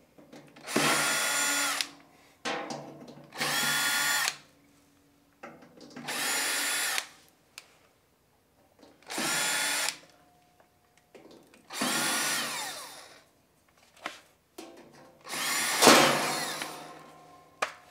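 Cordless drill/driver backing screws out of the compressor's steel shroud: six short runs of the motor whine, each about a second, with small clicks between them. The last run is longer and louder.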